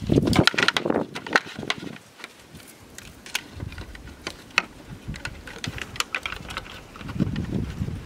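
Dry bamboo being handled and worked at a lashed joint: a quick flurry of cracks, clicks and rustling in the first two seconds, then scattered single clicks, and a louder rustle near the end.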